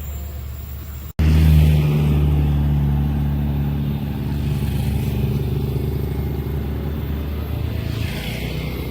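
Diesel locomotive engine running with a low, steady drone, starting abruptly just over a second in after a cut.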